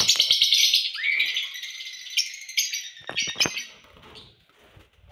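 Lovebirds chattering with dense, shrill chirps, loudest in the first second and then thinning out, with a few sharp clicks about three seconds in.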